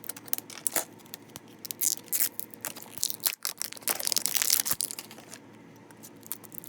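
Blind-box packaging of a collectible figure being opened by hand: a run of sharp crackles and crinkling of plastic or foil wrapping, with a longer tearing rustle about four seconds in.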